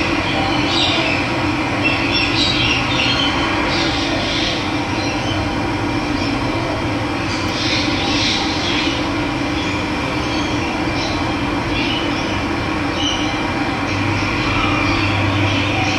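Steady rushing of running water, with birds chirping here and there above it.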